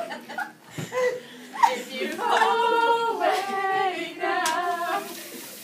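Young voices singing a few held notes of a pop song. A sharp tap comes about a second and a half in and another near the end.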